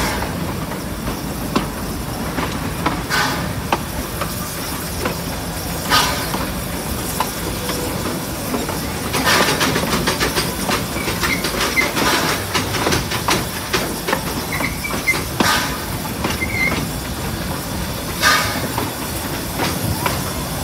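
Steam locomotive and its train running along the track, heard from on board: a steady rumble with a hiss of steam, and wheels clacking over rail joints every few seconds.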